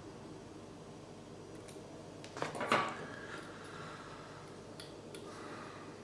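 Fly-tying scissors snipping and clinking on the bench: a short cluster of sharp metallic clicks about two and a half seconds in, with faint ringing after, and a few lighter ticks later.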